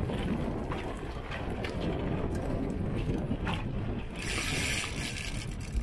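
Wind buffeting the microphone over water washing along the hull of a small sailboat under sail. A louder rushing hiss lasts about a second and a half near the end.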